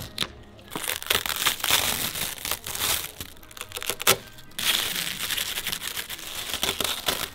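Clear plastic protective film and bubble wrap being peeled and crumpled off a new motorcycle: a dense, continuous crinkling and crackling, with one sharp louder crackle about four seconds in.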